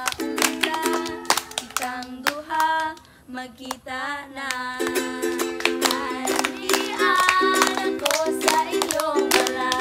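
Ukulele strummed in quick, even chords, with girls singing along and children clapping. About three seconds in, the strumming stops for a second or two while the singing carries on, then the strumming comes back.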